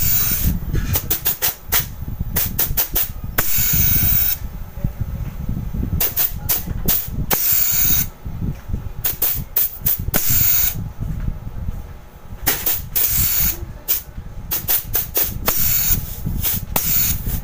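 Refrigerant gas hissing out of the open copper tube of a refrigerator's sealed system in repeated bursts, some short and some a second or more long, with a steady low rumble underneath: a purge flushing carbon out of the system.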